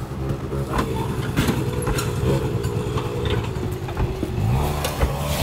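A motor vehicle engine running close by, revving up with a rising pitch about four and a half seconds in. Scattered sharp knocks are heard over it.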